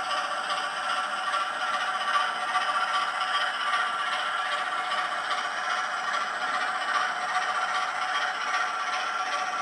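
Model railway locomotive running along the track: a steady rattling, scraping run of wheels and mechanism over an even whine.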